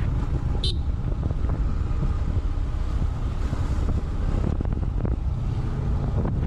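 Wind buffeting the microphone on a moving motorcycle, a steady low rumble with vehicle noise beneath. A short high chirp comes just under a second in.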